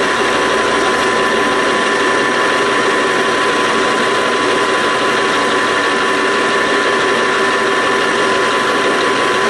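Metal lathe running while turning an annealed 4140 tool-steel bar under automatic carriage feed: a steady mechanical run with a constant gear whine from the drive.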